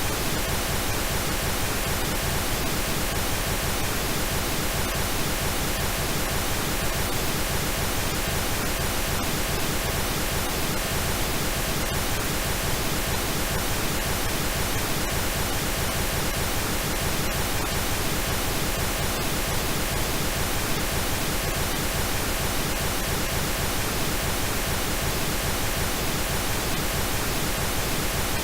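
Steady synthetic pink noise: an even, unbroken hiss across the whole range, without change.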